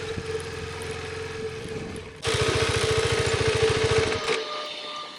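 KTM 390 Adventure's single-cylinder engine running as the motorcycle is ridden on a dirt trail. About two seconds in it turns suddenly louder with a fast, even firing beat, then drops away a little after four seconds, leaving fainter steady tones.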